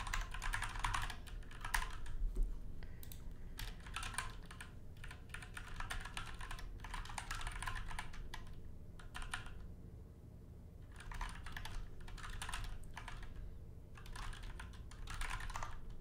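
Typing on a computer keyboard in bursts of quick keystrokes with short pauses, the longest about ten seconds in.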